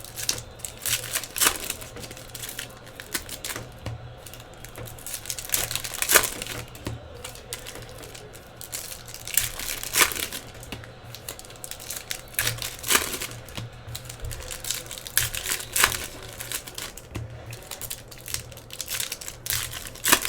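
Foil trading-card pack wrappers crinkling and tearing as packs are opened, in irregular crackles and snaps.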